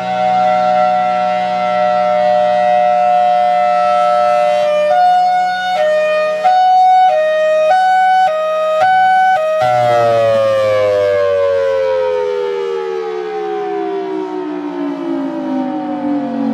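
Federal Signal Thunderbolt 1003 dual-tone outdoor warning siren sounding a steady two-note chord, then switching to hi-lo, alternating between two pitches a little over once a second. About ten seconds in it shuts off and winds down, its pitch falling steadily over a low steady hum.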